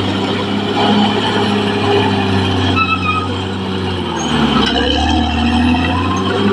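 Caterpillar D6R XL bulldozer working, its diesel engine running steadily, with a short high squeal about three seconds in.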